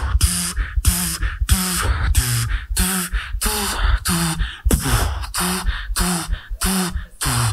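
Solo beatboxer performing live through a microphone: a steady beat of kick-drum thumps and hissing snare and hi-hat sounds at about two strokes a second, with short hummed bass notes that bend in pitch between them.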